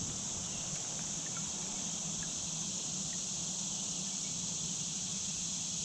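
Steady high-pitched drone of insects calling in riverside vegetation, unchanging throughout, over a faint low steady hum.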